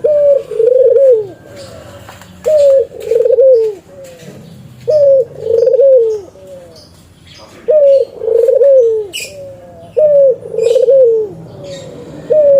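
Spotted dove (tekukur) cooing: a repeated phrase of a short note followed by a longer rolling coo that falls away at the end, given about every two and a half seconds, five times over.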